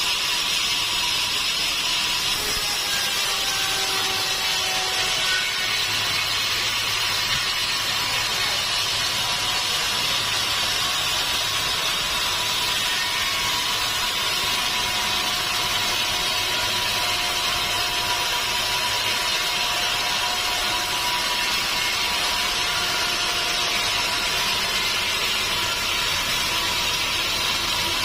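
Sawmill saw cutting steadily through a log: a continuous high hissing sawing noise that doesn't let up.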